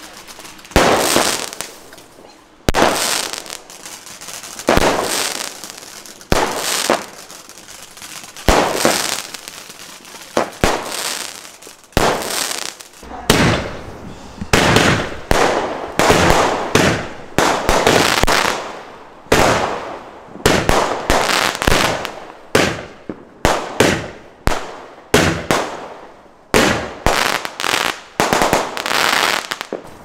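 Aerial fireworks bursting one after another, each shot a sharp bang followed by a fizzing crackle that dies away. About one shot every two seconds at first, then faster, roughly one a second, from about halfway through.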